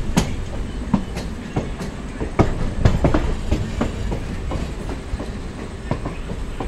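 Passenger train's wheels rolling at low speed, with sharp, irregularly spaced clacks as they pass over rail joints and points, under a steady low running noise heard from on board.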